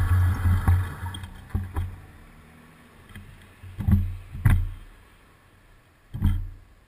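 Pickup truck passing close in front and its engine fading away over the first second or two, followed by a few short low thumps.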